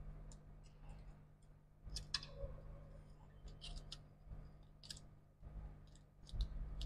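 Scattered light clicks and ticks of small tools and parts being handled at a laptop repair bench, over a low steady hum.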